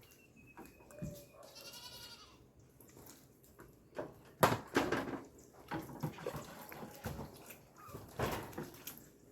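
A single farm animal call lasting about a second, about a second and a half in, followed about four and a half seconds in by a sharp knock and then scattered smaller knocks and handling clatter.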